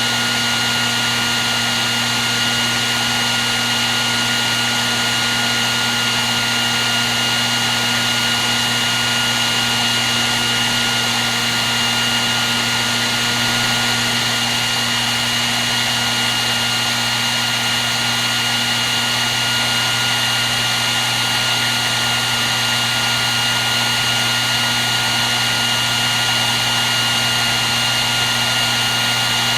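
Hair dryer running steadily at one constant setting: an even rush of blown air with a thin, steady whine on top.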